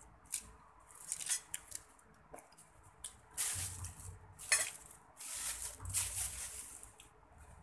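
Crisp green leaf lettuce rustling and crackling in several short bursts as leaves are torn off the head and handled, the loudest around the middle.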